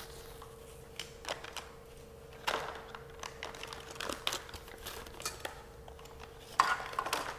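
Paper and plastic kit items, a two-sided dental bib among them, crinkling and rustling as they are handled and set into a plastic tray. The sound comes in scattered short bursts with a few light knocks, the loudest rustle near the end.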